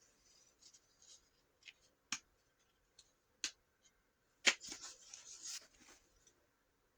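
Paper being handled and leafed through: scattered light taps and rustles, then a sharper click about four and a half seconds in, followed by a second or so of heavier paper rustling.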